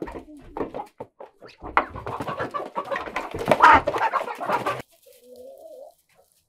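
Barnyard chickens clucking and squawking amid a noisy scuffle, loudest from about two to five seconds in. A short low warbling call follows.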